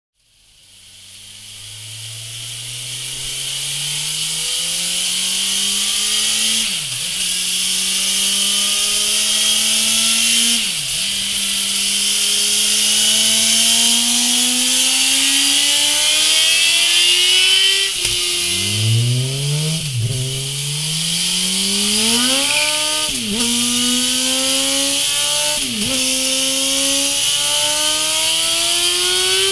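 2017 Suzuki GSX-R1000 inline-four engine on a dyno, accelerating through the gears with a rising pitch broken by sudden drops at each upshift. It is first heard through the stock exhaust. About three-fifths of the way in it is heard through a MIVV Speed Edge slip-on silencer, climbing through several quicker upshifts.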